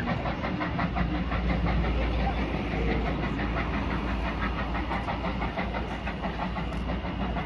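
Steam train pulling away: a steady low rumble with a fast, even beat of exhaust and wheels on the rails.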